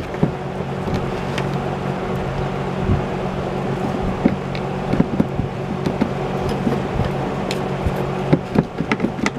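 Scattered clicks and taps of a small hand tool prying at a wire plug in a box fan's switch, more frequent near the end, over a steady low hum.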